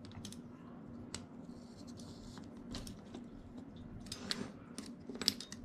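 Small clicks and taps of plastic and metal R/C buggy suspension parts being handled, as a steel hinge pin is pushed through a plastic suspension arm and the driveshaft is fitted into the outdrive. The clicks come loosest at first and cluster about four and five seconds in, over a faint steady low hum.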